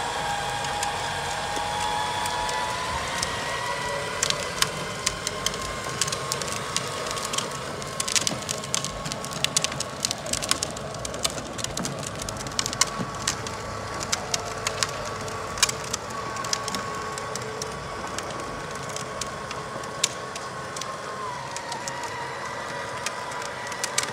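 Hard plastic wheels of a pedal go-kart and a towed wagon rolling over asphalt: a steady rolling noise with dense, irregular crackling of grit under the wheels in the middle stretch, and a wavering high whine running underneath.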